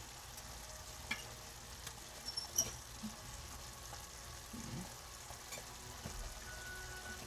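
Ground beef, pepper and onion mixture sizzling faintly in a frying pan on the stove, with a few light clicks as cooked rice is spooned onto it.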